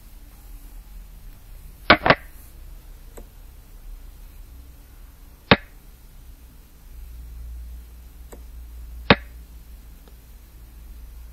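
Sharp clacks of xiangqi pieces being set down, the move sound of a board replay program: a quick double clack about two seconds in, then single clacks about three and a half seconds apart.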